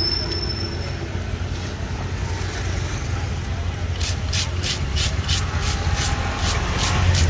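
Rhythmic scraping of a wooden-handled knife drawn along a whole tuna's skin, sharp strokes about three a second, starting about four seconds in. Underneath is a steady low rumble of road traffic.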